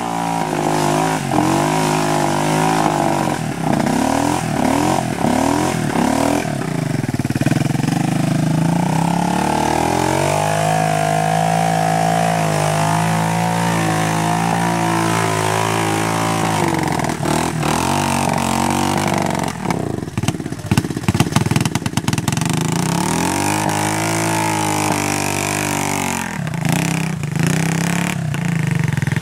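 Small single-cylinder ATV engine revving up and down over and over as the quad churns and spins its tyres through deep mud, with a cluster of sharp knocks about two-thirds of the way through.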